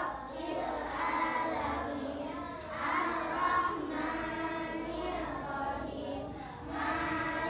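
Young children reciting Arabic prayer verses aloud together in a sing-song group chant.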